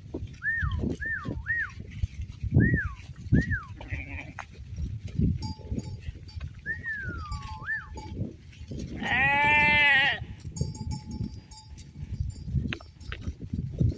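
Small livestock in the open. One long, loud bleat comes about nine seconds in, with faint bell tinkling, low knocks and short falling chirps repeated throughout.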